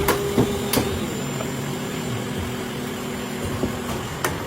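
Factory machinery running with a steady hum, with a few sharp metallic knocks near the start and one near the end.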